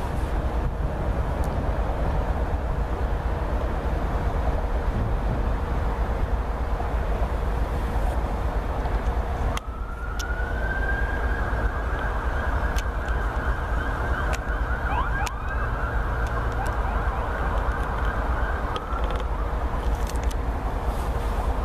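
Freight train rolling through the yard with a steady rumble. About ten seconds in, a high steady wheel squeal starts and holds for about nine seconds, with a few short squeaks over it; the wheel flanges are grinding on the curved track. A second squeal begins rising near the end.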